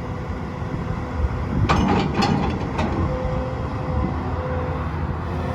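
Komatsu PC240LC-10 hydraulic track excavator running, with a few sharp metallic clanks about two seconds in.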